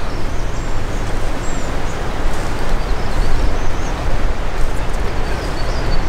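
Strong wind buffeting the microphone: a loud, steady rushing rumble. Faint high chirps of small songbirds come through over it.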